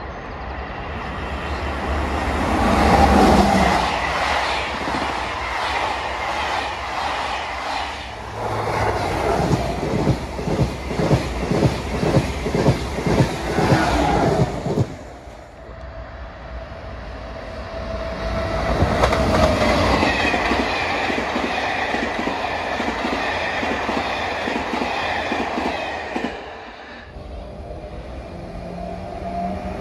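TGV inOui high-speed train passing through the station, its wheels clattering in a rapid, even rhythm over the rail joints before the sound cuts off sharply halfway through. A double-deck electric commuter train then comes in with a steady running sound and a faint whine, louder again near the end as it reaches the platform.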